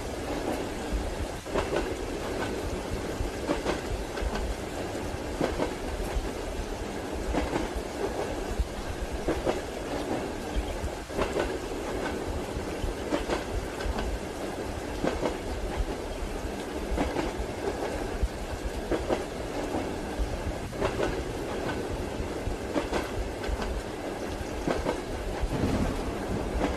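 Train running on rails: a steady rumble with the clickety-clack of wheels over rail joints, clacks recurring about every two seconds.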